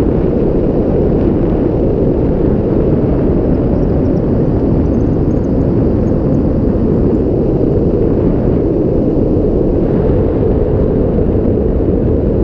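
Loud, steady wind noise on an action camera's microphone, from the rush of air past a paraglider in flight.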